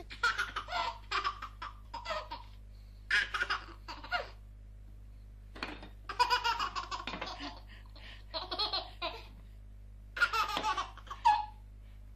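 A baby laughing in about five bouts, each a quick run of laughs, with short pauses between them.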